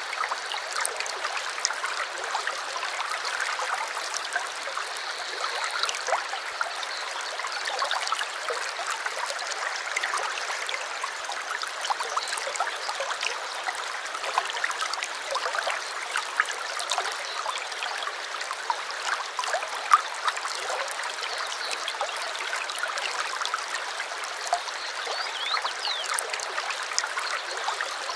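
A small stream flowing with a steady trickling, babbling rush, full of tiny splashes.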